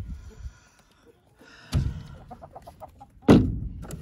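Two sharp knocks about a second and a half apart, the second the louder, with hens clucking faintly between them.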